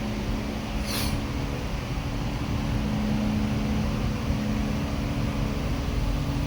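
Steady machine hum with a constant airy rushing noise. A brief high hiss comes about a second in.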